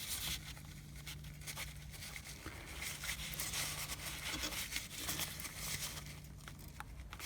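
Faint handling noises, light rustles and small clicks, over a low steady hum; the engine is not running.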